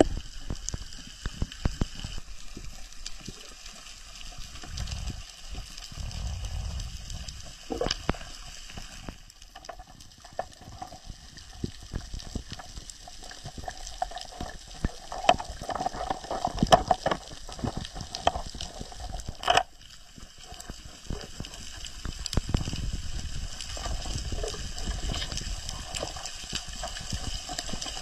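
Underwater sound picked up by a camera underwater: a continuous bubbling, rushing water noise with many scattered sharp clicks and a few louder knocks.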